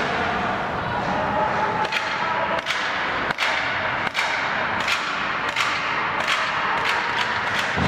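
Sharp cracks of hockey sticks and pucks striking on the ice and boards, one about every three-quarters of a second and coming faster near the end, over the steady din of an ice rink.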